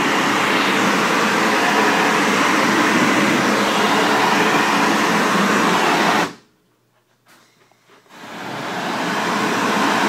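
Steady hiss of a pressure-washer water spray on air-conditioning condenser coils. It cuts out abruptly about six seconds in and builds back up about two seconds later.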